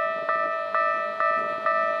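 Japanese railway level crossing warning bell ringing, an electronic bell tone struck a little over twice a second, each strike ringing on into the next: the signal that a train is approaching and the barriers are down.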